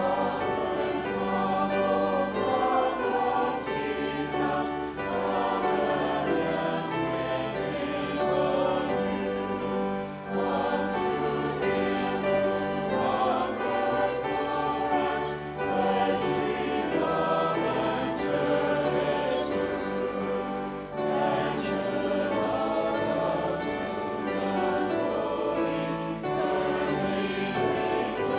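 Church choir and congregation singing a hymn together, in continuous sung phrases.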